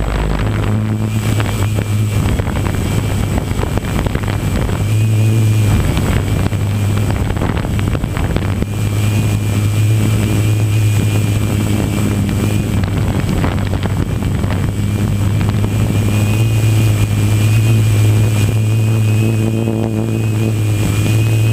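Multirotor drone's motors and propellers running steadily in a hover, heard close up from the onboard camera: a steady low hum with a thin high whine above it, and wind buffeting the microphone.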